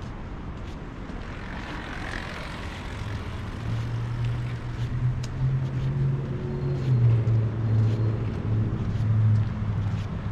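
A motor vehicle's engine running close by: a low hum that sets in about three seconds in, is loudest through the middle and wavers slightly in pitch, over steady street noise.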